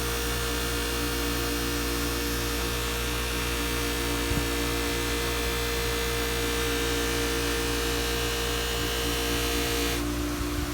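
Electric bench buffer running steadily with a motor hum, the blade of a draw knife held against the buffing wheel to polish the edge. Near the end the hiss thins out and the higher tone stops.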